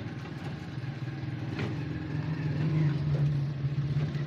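A motorcycle engine running steadily, its hum growing louder about halfway through, with one short knock about a second and a half in.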